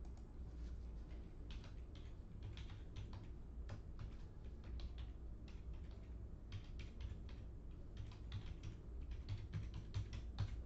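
Typing on a computer keyboard: irregular runs of light key clicks with short pauses between runs, over a faint low hum.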